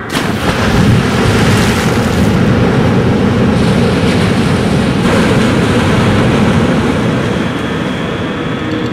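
Loud, steady rushing roar of dense noise, like heavy surf, laid on as a film soundscape; it starts abruptly and eases off slightly near the end.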